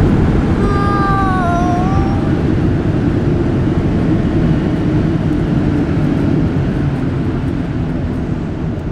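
Steady jet airliner noise heard inside the passenger cabin, a Southwest Airlines Boeing 737 in flight. The low rumble eases slightly towards the end, and about a second in a brief wavering tone dips and rises over it.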